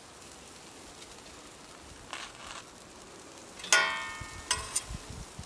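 A metal utensil clinks against the steel plancha with one sharp, briefly ringing strike past the middle, then two lighter clicks and a few soft knocks, over a faint steady hiss.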